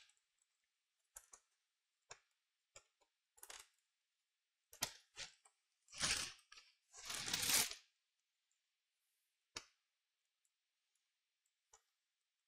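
Scattered light clicks and taps of small parts being handled on a laptop motherboard while an SSD is fitted, with two longer scraping sounds about six and seven seconds in.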